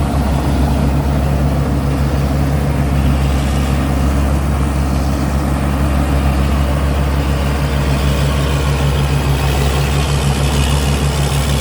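Cummins diesel engine of a combine harvester running steadily, a deep, even drone with no change in pace.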